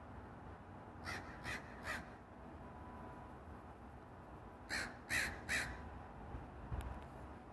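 A crow cawing: three harsh caws about a second in, then another three just before the five-second mark.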